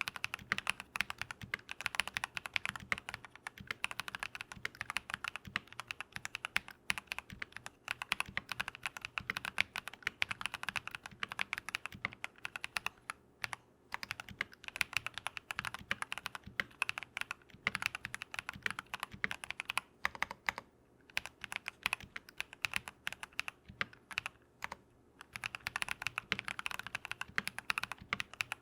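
Continuous fast typing on a modded Keychron V1 mechanical keyboard fitted with lubed Drop + Invyr Holy Panda tactile switches: a dense, steady stream of keystroke clacks, broken by a few short pauses.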